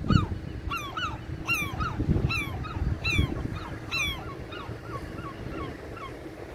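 Gulls calling: a quick run of sharp, downward-bending cries, about three a second, growing fainter over the last two seconds. Low gusts of wind buffet the microphone now and then.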